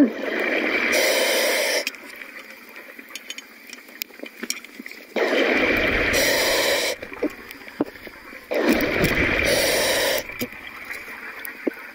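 Scuba diver breathing through a regulator underwater: three loud gushes of exhaled bubbles, each one and a half to two seconds long and about four seconds apart, with quieter stretches of scattered sharp ticks in between.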